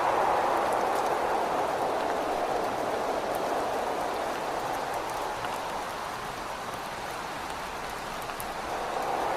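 Rain with gusting wind, a steady hiss with light scattered drop ticks. The wind eases through the middle and swells again near the end.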